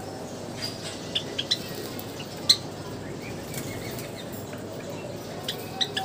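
Java sparrows giving short, sharp chip calls, a few scattered through and the loudest about two and a half seconds in, over a steady background hiss. Near the end there is a quick flutter of wings as a bird drops to the water bowl to bathe.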